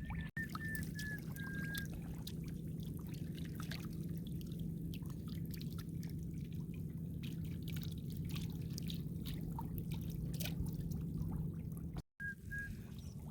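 Water trickling and dripping with many small ticks and splashes, over a steady low rumble.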